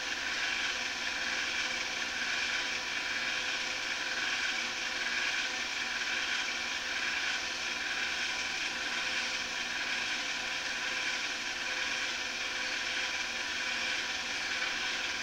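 Film projector running: a steady mechanical whir and hiss with no changes.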